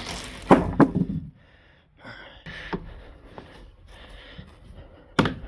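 Sheet of particle board being set back down on a wooden ramp frame: a scrape and two sharp knocks about half a second in, then quieter handling noise with small clicks, and another hard knock near the end.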